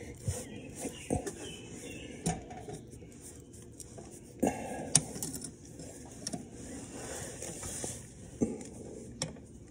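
Scattered light metallic clicks and knocks, about half a dozen at irregular times, the sharpest about five seconds in, from tools and the parking brake cable of a Can-Am Spyder RT being worked on by hand.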